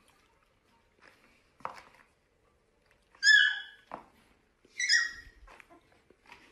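A puppy gives two short, high-pitched yips about a second and a half apart, each bending in pitch, with a couple of faint knocks before them.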